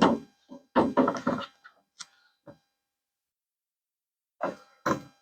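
Replacement refrigerator door panel knocking and clicking against the freezer door as it is slid into place: a cluster of sharp knocks in the first second and a half, two light taps, then two more knocks near the end.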